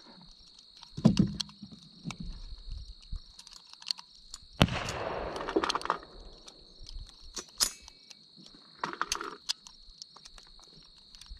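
Steady high-pitched buzz of insects, with scattered clicks and knocks from gear being handled, and one sharp bang followed by about a second of noise roughly four and a half seconds in.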